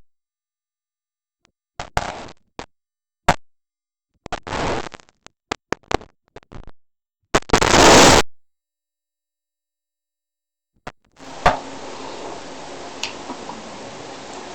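Scattered knocks and clicks with short bursts of rushing noise, the longest and loudest about eight seconds in, separated by dead silence; from about eleven seconds on, a steady low hiss.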